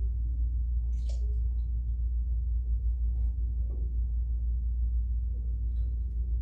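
Steady low background rumble, with a short hiss about a second in and a few faint ticks.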